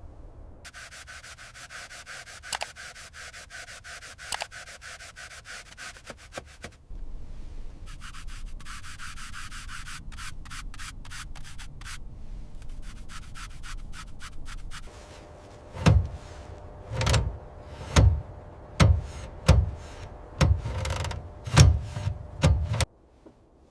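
Rapid, rhythmic scraping and rubbing, like abrasive work on a surface. About two-thirds of the way in it gives way to a series of about eight heavy thuds, roughly one a second.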